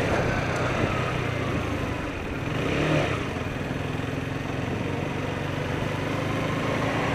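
Motorcycle engine running steadily, swelling briefly about three seconds in.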